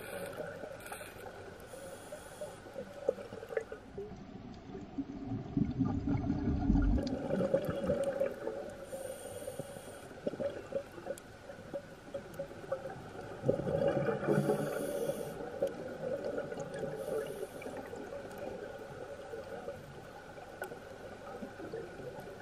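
Scuba regulator breathing heard underwater: the hiss of inhaling and the gurgling rumble of exhaled bubbles, with a big exhale about five seconds in and another loud one about fourteen seconds in.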